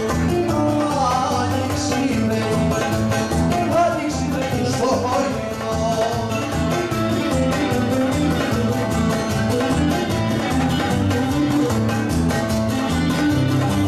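Live Greek folk music: bouzouki and a small baglamas plucked together over a darbuka goblet drum keeping a steady rhythm.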